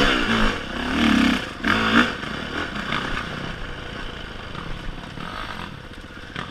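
Vehicle engine revved through its exhaust a few times in the first two seconds, then settling back to a steady idle.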